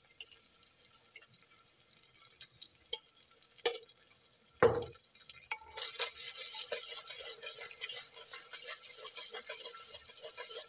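Sliced onions and ginger-garlic paste frying in hot oil in a clay pot. A faint crackle with a few clicks gives way, after a sharp knock a little before halfway, to a louder, dense sizzle and crackle as the mixture is stirred with a spoon.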